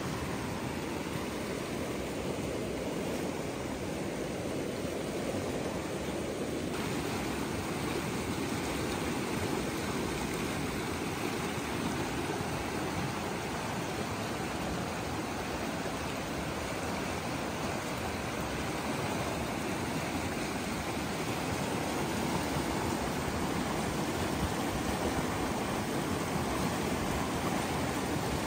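Fast mountain river rushing over rocks and shallow riffles: a steady, even whitewater rush, turning a little brighter and hissier about seven seconds in.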